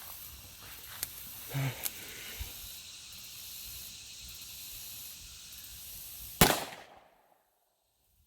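A single loud revolver shot, about six and a half seconds in, a sharp crack with a short decaying tail, fired with .357 Magnum rounds at a padlock. Before it, a few small clicks and knocks over a steady outdoor hiss.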